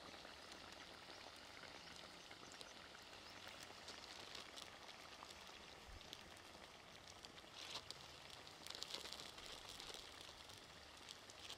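Near silence: faint outdoor ambience, a soft steady hiss with a few light ticks.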